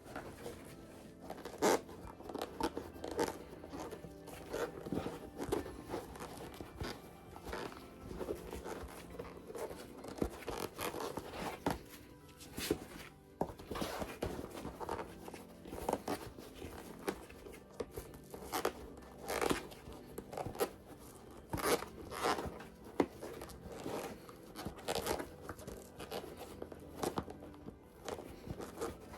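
A stiff vegetable-tanned leather bag squeaking, creaking and rustling in irregular bursts as it is forced right side out by hand after being sewn inside out. Light background music plays under it.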